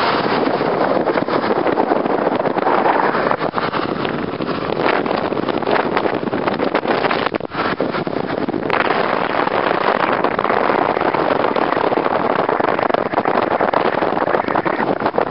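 Wind noise rushing and crackling on the camera microphone in a moving pickup truck, with a short break in the noise about eight seconds in.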